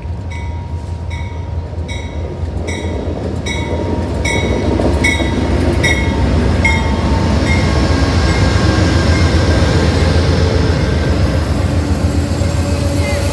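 Amtrak diesel passenger locomotive and its double-deck Superliner cars rolling past close by. For the first six seconds or so the locomotive's bell rings about twice a second, and it fades out. The low rumble of the engine and wheels grows louder as the cars pass, with some faint thin squealing from the wheels.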